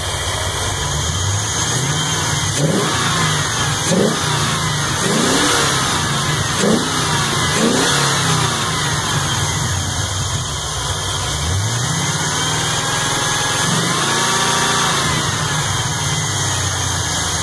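GM 5.3 L LM7 Vortec V8 idling and being revved in the engine bay: several quick blips of the throttle in the first half, then two slower, longer revs.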